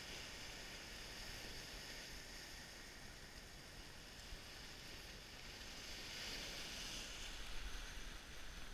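Surf washing over a rocky shore, a steady hiss that swells a little near the end, with a low rumble of wind on the microphone.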